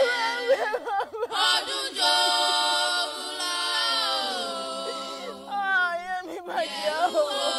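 Unaccompanied singing in long held notes that glide from one pitch to the next, with a strong wavering vibrato on one note about six seconds in.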